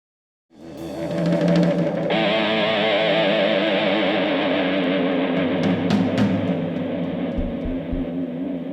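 Live band music that cuts in abruptly about half a second in: sustained, wavering guitar tones over drums, with a few low drum beats in the second half.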